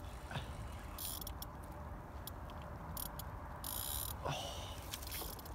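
Spinning reel on light tackle under load from a hooked pike: short bursts of high-pitched drag buzzing as the fish takes line, with a few separate clicks from the reel. Steady low wind rumble on the microphone underneath.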